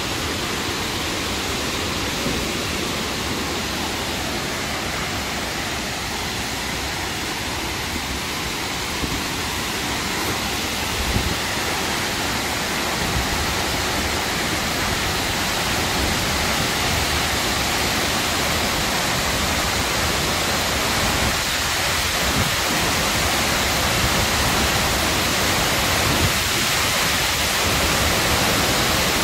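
A tall waterfall's steady rushing noise, growing gradually louder through the second half.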